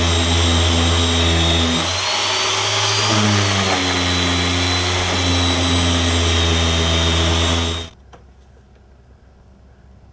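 Corded power tool with a sanding disc running as it sands hardened fiberglass filler on a wooden door jamb. Its pitch shifts between about two and four seconds in, and it stops about eight seconds in.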